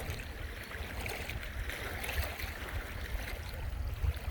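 Outdoor lakeside ambience: wind rumbling on the microphone over a steady wash of water and distant background noise.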